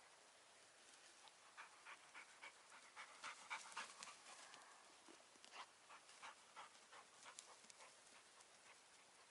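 A dog panting in quick, faint, rhythmic breaths, strongest a couple of seconds in, then trailing off.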